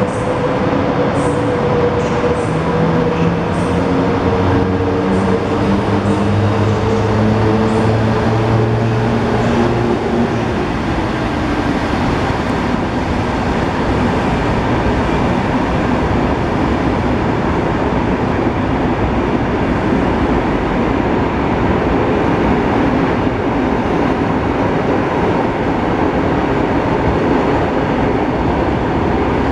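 An electric locomotive and its passenger coaches rolling past at low speed, with a steady loud rumble of wheels on rail. For the first ten seconds or so, several whining tones from the locomotive fall slowly in pitch and then fade, leaving only the rolling noise.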